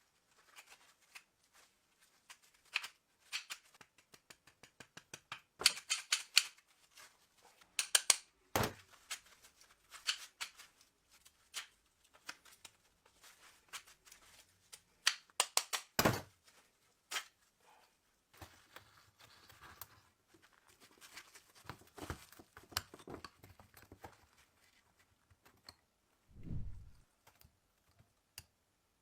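Irregular sharp metallic clicks and knocks with some scraping, from hand work on a rusty antique pistol, and a dull thump near the end.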